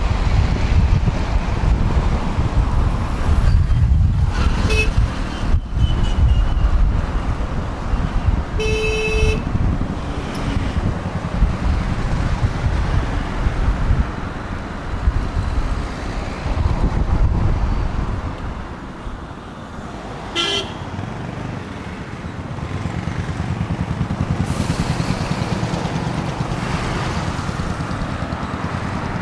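Heavy road traffic heard from a moving bike: a constant rumble of engines and wind, with vehicle horns honking over it: a short toot about 5 s in, a longer, stronger horn blast around 9 s, and another short honk about 20 s in. The rumble eases off for a few seconds past the middle, then builds again.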